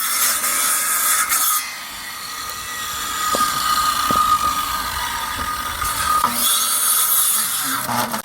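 Power saw cutting into hard, resin-soaked pine heartwood, running with a steady high whine. It dips and picks up again as it bites, and the cut goes slowly because the resinous wood is so hard.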